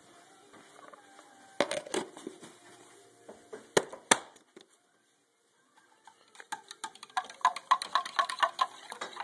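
A spoon stirring in a plastic blender cup, clicking quickly against its sides about four to five times a second, starting about two-thirds of the way in. Earlier there are a few sharp knocks from handling.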